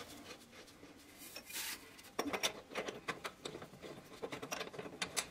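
Faint metallic rubbing and light clicking of brass threaded pipe fittings being turned by hand onto a water filter head. A soft rub about a second in, then a run of irregular small clicks from about two seconds in.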